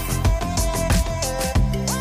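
Background music with a steady beat and a melody moving in held notes.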